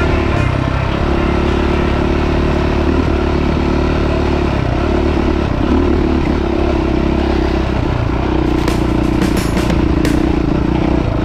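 Dirt bike engine running under load on a rocky track, its note rising and falling with the throttle. Sharp clatters and knocks of stones and chassis join in near the end.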